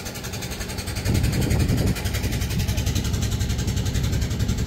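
Boat engine running steadily with a low, pulsing chug, growing louder for about a second shortly after the start.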